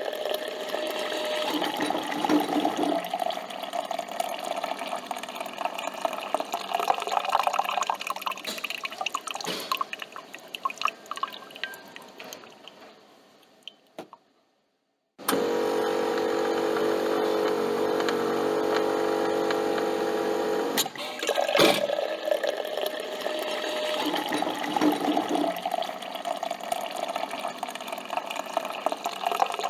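Coffee machine brewing: liquid streaming and dripping into a cup, fading away to silence midway. After a short gap a steady machine hum runs for about six seconds, then a click, and the streaming and dripping start again.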